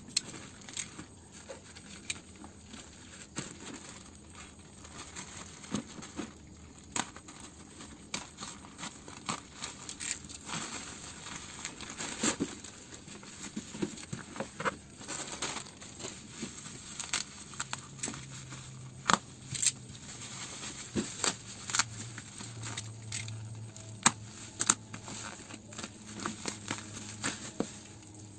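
Plastic courier packaging and bubble wrap being handled and pulled apart: crinkling, rustling and tearing, with many sharp clicks and crackles.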